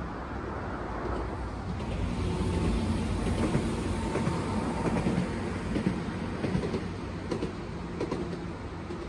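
Green Mover Max low-floor tram running past, wheels clicking on the track. It grows louder a couple of seconds in and eases off near the end.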